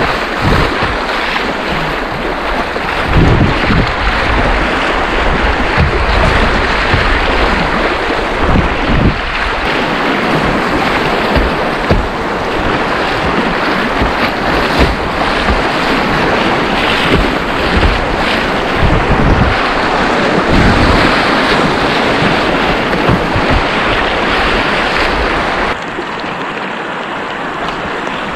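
Rushing river rapids and waves splashing against the bow of a whitewater kayak, with wind buffeting the microphone in irregular low rumbles. The rush steps down abruptly near the end.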